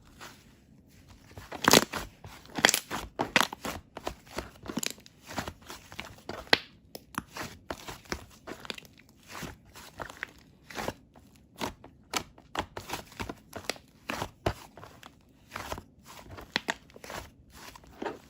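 Close-up crunching and crackling: many irregular sharp clicks a few times a second, loudest a couple of seconds in.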